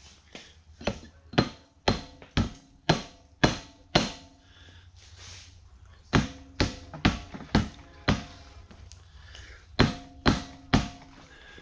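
Hammer blows on a metal part, about two a second in three runs of seven, five and three strikes, each blow ringing briefly.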